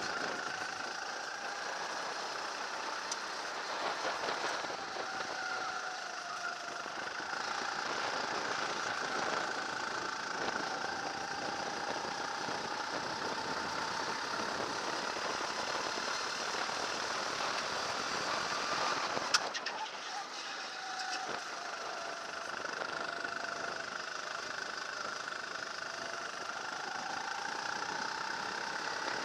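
Engine of a small single-seat racing car heard from the cockpit at racing speed, its pitch rising and falling as the revs change through the corners. A single sharp knock about two-thirds of the way through.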